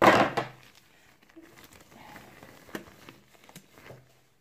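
A rubber cleaning glove being handled: a brief loud rustle at the start, then faint rustling and a few small clicks.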